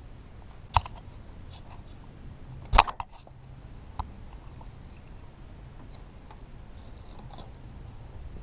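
Three sharp knocks, the loudest about three seconds in, over a low steady hum, as the timing belt of a Toyota 3VZ-E V6 is worked off its gears and pulleys by hand.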